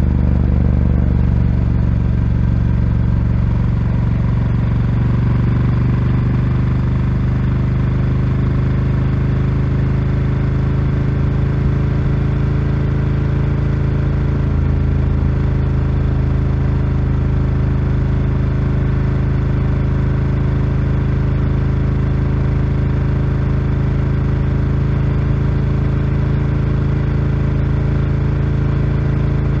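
Ducati Scrambler 1100's air-cooled L-twin engine through a Termignoni exhaust, running steadily while the bike cruises. The engine note shifts slightly in the first few seconds, then holds an even pitch.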